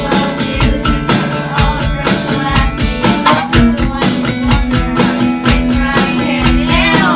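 Band music with guitar and a steady drum beat.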